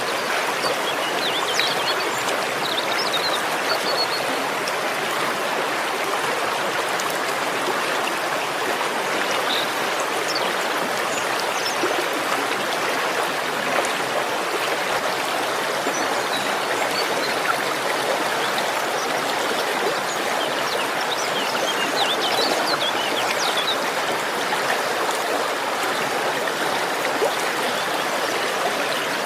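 Steady, even rush of water from the Curug Ciherang waterfall and its stream, with a few faint high chirps near the start and again about two-thirds through.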